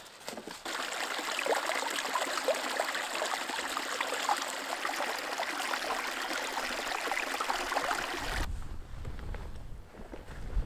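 A small meltwater stream trickling and gurgling through snow and grass. It cuts off suddenly about eight seconds in and is followed by a low rumble of wind on the microphone.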